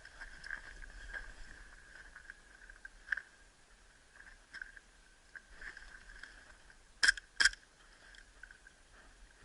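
Two sharp airsoft pistol shots about a third of a second apart, roughly seven seconds in. Under them, faint scattered crackles of movement and a steady faint high whine.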